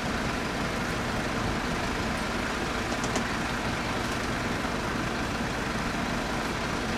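Heavy vehicle engine idling steadily, with a brief click about three seconds in.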